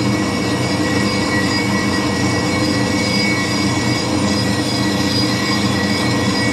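Metal lathe running steadily with a whine while a ground radius form tool cuts into the rim of a spinning cast flywheel, fed back and forth across it.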